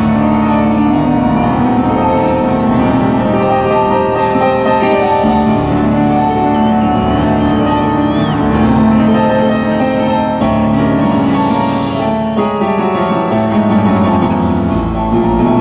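Live rock band playing loudly, with piano to the fore over bass and drums, heard through a handheld recording from the crowd.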